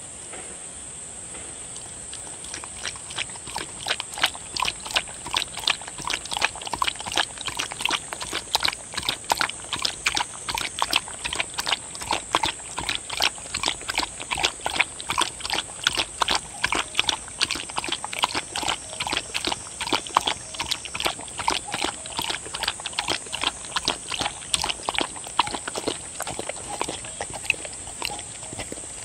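A dog lapping up liquid soup from a plate: a quick, even run of wet laps that starts a couple of seconds in and stops near the end.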